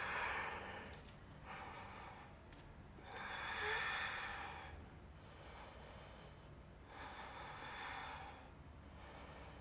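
A woman breathing audibly while holding a wheel-pose backbend: about four slow, airy breaths, the loudest about three to five seconds in.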